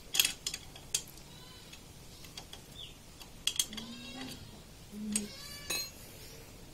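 Steel ring spanner clicking and clinking against the crankcase bolts of a Yamaha FZ engine as they are checked for tightness after an oil change. There are several sharp clinks in the first second, and a few more about three and a half and almost six seconds in.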